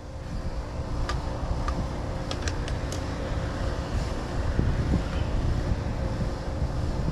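Steady low rumbling noise with a faint hum and a few light clicks in the first few seconds.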